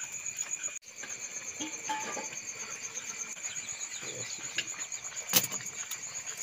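Crickets chirping in a steady, rapid, high-pitched pulsing trill, with one sharp knock about five seconds in.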